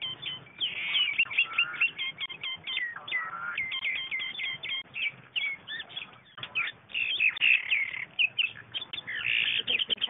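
Mynas calling as they fight: a dense, rapid run of short chirps, some gliding up or down in pitch, with hardly a pause.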